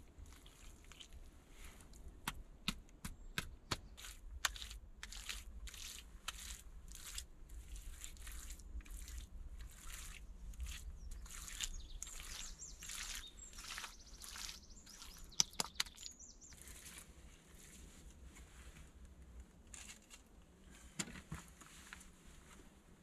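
Bare hands smearing and patting wet mud onto a log wall, a run of short wet strokes about one or two a second, then a couple of sharper knocks. Birds chirp faintly in the background.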